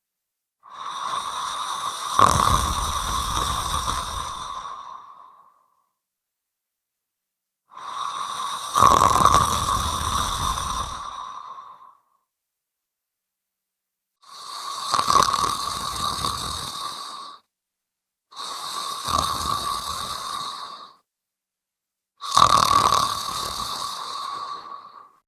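A person snoring: five long snores, each a few seconds long, starting loud and fading away, with silent pauses between them.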